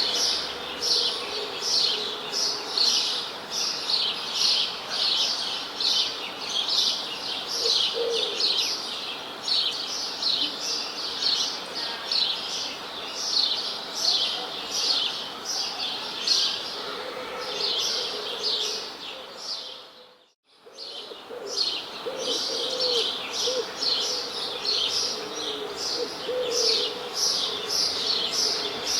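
A chorus of small birds chirping rapidly and continuously: dense high chirps several times a second, with lower wavering calls now and then. The sound cuts out briefly about two-thirds of the way through, then resumes.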